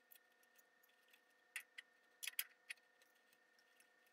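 Faint, scattered small metallic clicks and ticks as a feeler gauge blade and an open-end wrench work the rocker arm and adjusting nut while setting the intake valve clearance on a Briggs & Stratton overhead-valve mower engine. There are about half a dozen clicks, bunched in the middle.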